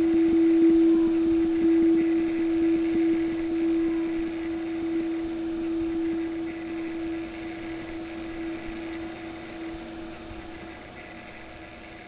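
A sustained drone held on one steady pitch with faint overtones, slowly fading out.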